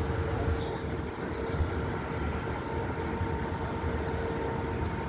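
Steady street-traffic noise from a large vehicle: a low rumble with a constant hum or whine held on one pitch.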